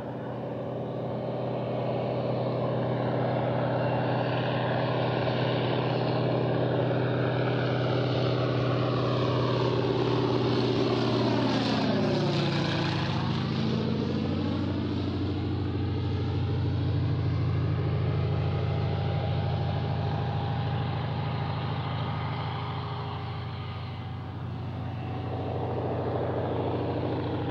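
PZL M-18 Dromader's nine-cylinder ASz-62IR radial engine and propeller on a low pass overhead. The drone builds, is loudest about twelve seconds in and drops in pitch as the plane passes, then fades and swells again near the end.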